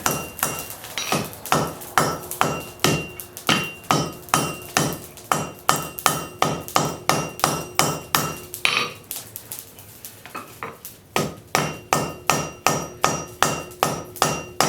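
Blacksmith's hammer striking a hot railroad spike on an anvil, working its edges, in a steady rhythm of about two to three blows a second, each blow ringing. The blows ease off briefly about nine seconds in, then pick up again.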